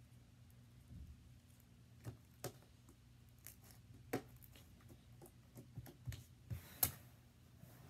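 Sticky slime being squished and pulled by hand: soft, irregular clicks and pops every second or so, the loudest near the end, over a steady low hum.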